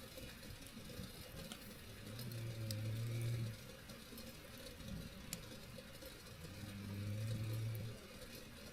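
Snoring: two long, low snores about four and a half seconds apart, with faint crackles from a wood campfire.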